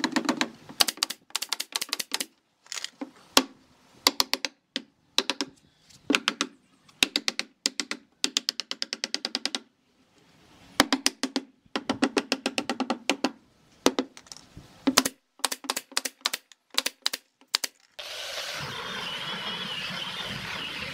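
Runs of sharp, rapid clicks from a pneumatic nail gun driving nails into pallet-wood boards, mixed with hammer taps on the nails. About 18 seconds in, this gives way to the steady running noise of an angle grinder sanding wood with a sanding disc.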